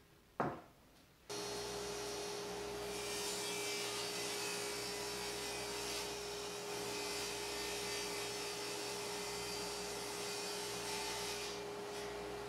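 A single knock, then a table saw switches on and runs with a steady hum while its blade rips through half-inch Baltic birch plywood; the cutting noise comes in about three seconds in and eases off shortly before the end as the cut finishes.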